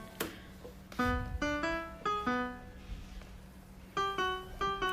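Background music: a simple melody of single keyboard notes, played in two short phrases with a pause between them.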